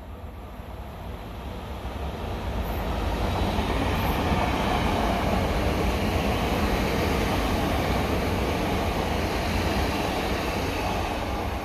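Öresundståg electric multiple unit passing along the adjacent track at about 80 km/h, the line's current limit: a rumble of wheels on rail that builds over the first few seconds as it approaches, holds steady while it runs past, and eases slightly near the end as it moves away.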